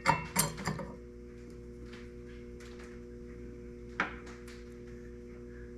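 Small steel vise parts clicking and clinking as they are handled and fitted during reassembly: a quick cluster of sharp, briefly ringing clicks about the first second, then a few single clicks spread out later, over a steady background hum.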